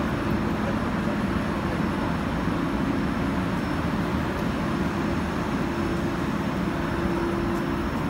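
Rubber extrusion and hot-air vulcanization oven line running: a steady machine hum over a broad whirring noise.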